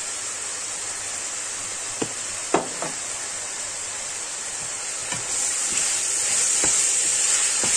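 Diced chicken and onion frying in olive oil in a stainless steel pan over high heat, a steady sizzle that grows louder about five seconds in as the wooden spoon starts stirring, with a few light knocks.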